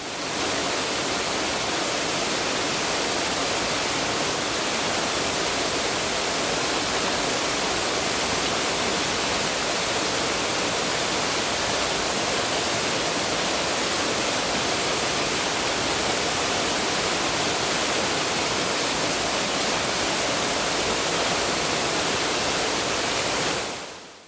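Stream water pouring down vigorously over a drop: a loud, steady rushing that fades out near the end.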